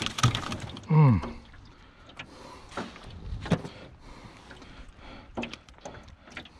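A man's short exclamation, falling in pitch, about a second in. Then scattered light knocks and clicks as a landed flounder is handled in a landing net and with a hand tool inside a metal jon boat.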